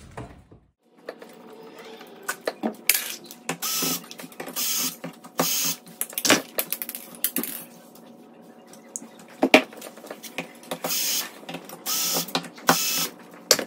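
Door lock hardware being taken apart by hand: irregular metal clicks, knocks and short scraping rattles.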